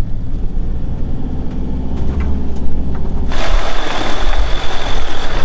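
Fiat Ducato camper van's engine running with a steady low rumble heard from inside the cab. About three seconds in, the sound cuts to beside the front wheel, where BFGoodrich KO2 all-terrain tyres crunch over a loose, rocky dirt track.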